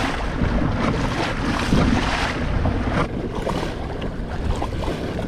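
Wind buffeting the microphone over the splash and slap of choppy, whitecapping water against a kayak's hull as it drives into the wind. The hiss eases slightly about three seconds in.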